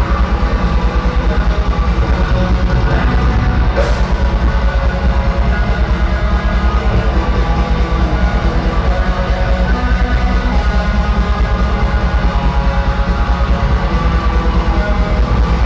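Live heavy metal band playing loud, with distorted electric guitars over a fast, steady drum beat, heard from the crowd.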